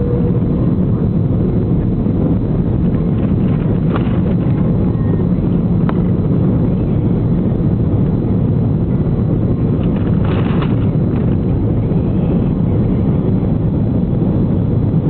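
Steady rumble of jet-airliner cabin noise, engine and airflow heard from a window seat, with a few faint brief clicks.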